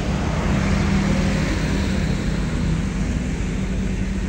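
Diesel engine of a Kobelco long-reach excavator running steadily while it dredges mud, a low even drone.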